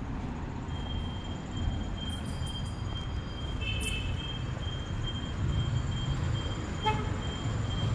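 Street ambience: the low, steady rumble of passing traffic. From about a second in, a faint high-pitched tone pulses rapidly, and there is a brief click near the end.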